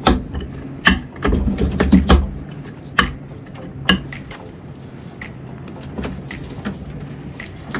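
Steel anchor chain clanking and rattling in irregular sharp knocks as it is hauled by hand through the bow windlass. A low rumble sits under the first two seconds.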